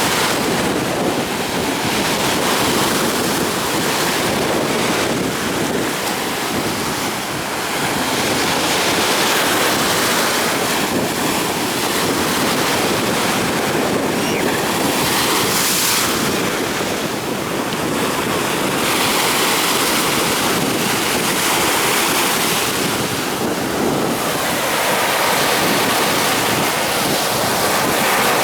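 Storm surf: waves breaking and washing in continuous swells that rise and ease every few seconds, with wind buffeting the microphone.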